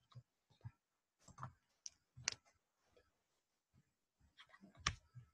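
Faint, scattered clicks and soft taps at irregular intervals, with a sharper click about two seconds in and another near the end.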